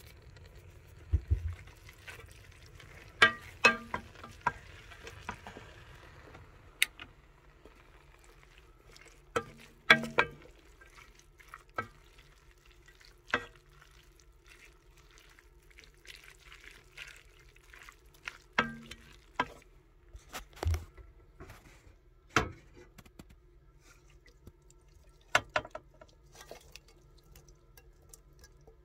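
Wooden spoon stirring fusilli pasta and cubed cheese in a metal pot, with scattered sharp knocks and clicks as the spoon hits the pot, over a low steady hum.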